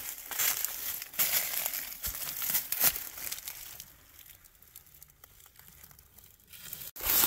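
Footsteps crunching through deep, dry fallen leaves, several steps close together, then a quieter stretch about two-thirds of the way through before the crunching picks up again near the end.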